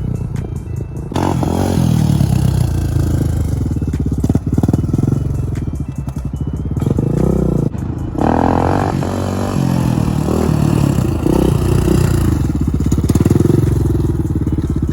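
Honda TRX400EX quad's single-cylinder four-stroke engine revving hard, the pitch climbing and dropping several times as the throttle is worked to hold a wheelie.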